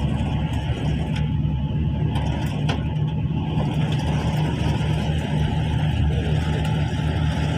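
Steady rain beating on a window glass, an even rushing patter over a low rumble, with a few sharper drop ticks.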